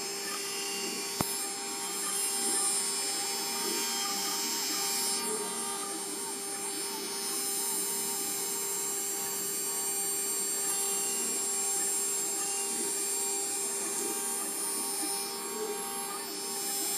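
Small 4-axis CNC router's spindle running steadily as it engraves an olive pit held in its rotary chuck: a steady whine with several fixed tones over a scraping cutting noise. A single sharp click about a second in.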